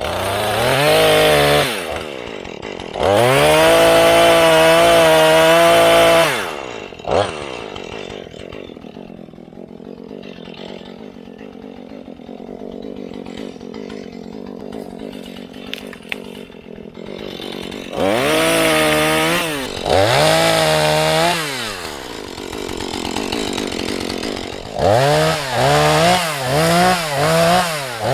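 Husqvarna 435 two-stroke chainsaw revved up and held at high speed for about three seconds, then dropping back to idle for a long stretch. It is revved twice more, then given a quick run of short throttle blips, about two a second, near the end.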